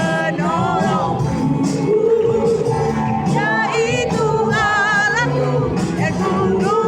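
Music: a song with a voice singing over steady accompaniment.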